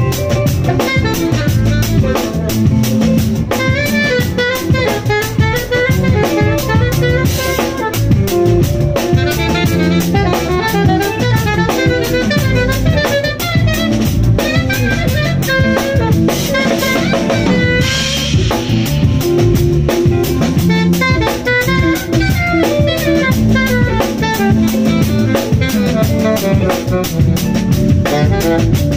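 Live jazz band: an alto saxophone plays the lead line over electric bass guitar and a drum kit.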